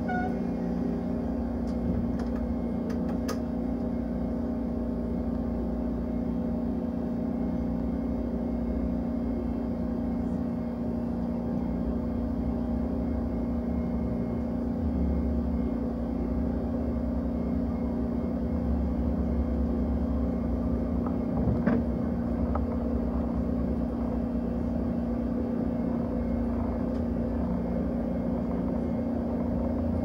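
Passenger train running along the track, heard from on board: a steady rumble under a constant low hum, with a brief sharp knock about two-thirds of the way through.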